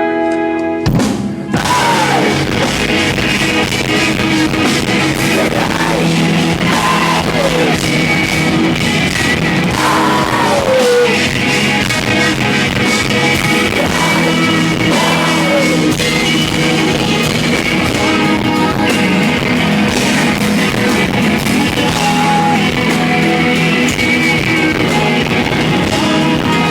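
Live rock band playing: a clean guitar line, then the full band with drums comes in suddenly about a second in and plays on loudly.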